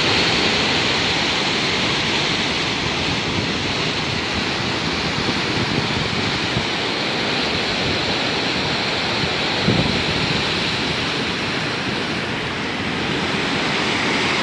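Sea surf breaking over rocks: a steady rushing, churning wash of waves and foam, with a brief louder splash nearly ten seconds in.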